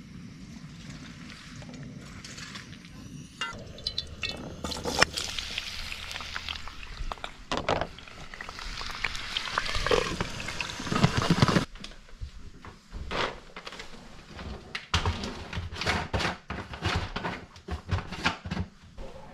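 Kitchen handling sounds: a noisy stretch that cuts off suddenly, then a run of short knocks and clinks as a lidded cooking pot and a plastic jar are handled.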